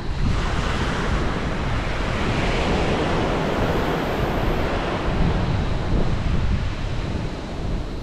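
Ocean surf: a wave breaks and washes up the shore, its hiss swelling over the first few seconds and easing off about halfway through, with wind buffeting the microphone.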